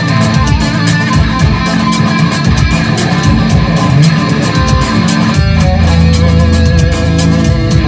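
Electric guitar played through ENO effects stomp boxes, over a steady beat.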